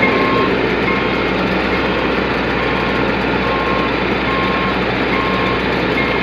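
Rice combine harvester engine running steadily, with a reversing beeper giving short beeps about once a second.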